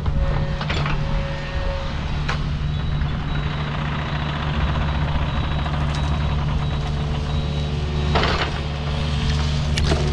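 Excavator's diesel engine running steadily under hydraulic load while its rake works through brush, with a few short crashes of breaking or scraping material, the biggest near the end.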